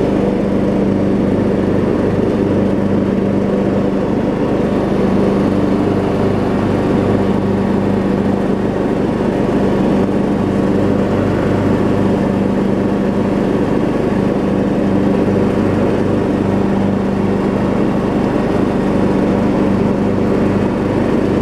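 Troy-Bilt Bronco riding mower's 18.5 hp Briggs & Stratton engine running steadily as the mower drives forward. Under load, the engine surges a little.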